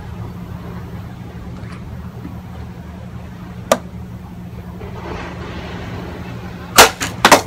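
A katana (unokubi-zukuri blade) cutting through a water-filled plastic bottle on a wooden post: a sharp crack near the end, then a second, quicker knock about half a second later. A steady low hum runs underneath.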